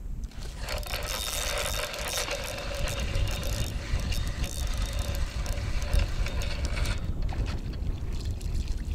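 Spinning reel cranked to retrieve line: a steady whirring for several seconds that stops about a second before the end, over wind rumbling on the microphone.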